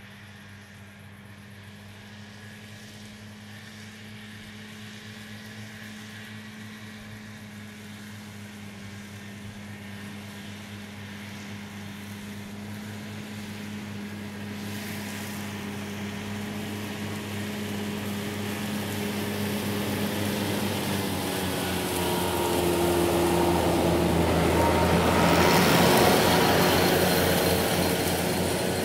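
Small electric motor of a Faller Car System model tractor pulling a trailer: a steady whirring hum that grows louder as the model drives nearer, loudest near the end, then eases off slightly.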